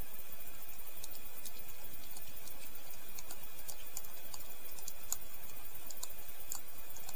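Small, light clicks and ticks of a precision screwdriver working the tiny screws of an Ontario RAT-1 folding knife's handle scale, scattered irregularly over a steady background hiss.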